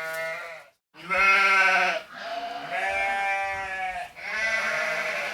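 Sheep bleating: four bleats, the first trailing off into a short dead silence about a second in, then three in close succession, the middle one drawn out for about two seconds.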